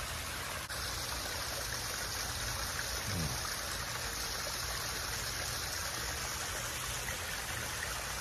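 Water from a backyard koi pond's waterfall running steadily.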